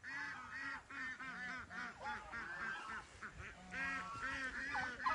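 Domestic turkeys calling: a steady run of short, arching yelping notes, several a second.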